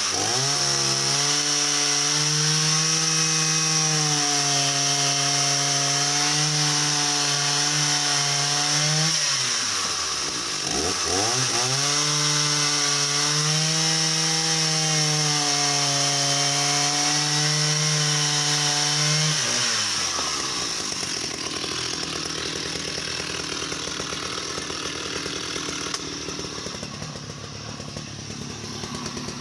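Stihl 045 AV 75cc two-stroke chainsaw held at full throttle cutting larch: two stretches of about nine seconds at a steady high pitch, the engine dropping briefly between them. About twenty seconds in it falls back to a quieter idle.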